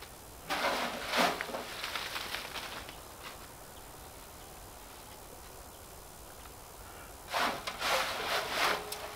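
Dry autumn leaves rustling and crackling as they are handled by the handful and added to a compost heap. There are two bursts, about half a second in and again from about seven seconds in.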